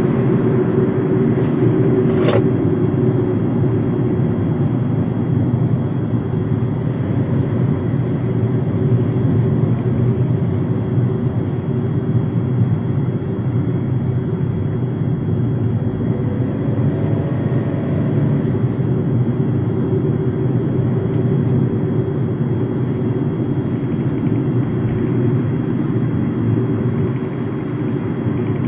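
MG ZS cruising, heard from inside the cabin: a steady rumble of tyre and engine noise. A single sharp click sounds a little over two seconds in.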